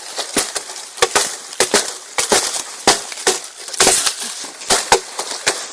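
Dry wood and frozen leaf litter crunching and snapping in a quick, irregular run of sharp cracks, several a second.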